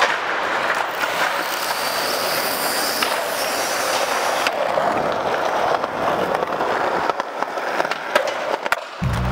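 Small quadcopter drone's propellers buzzing for the first four seconds or so, then skateboard wheels rolling, with the tail pop and landing of an ollie, two sharp clacks about half a second apart, near the end.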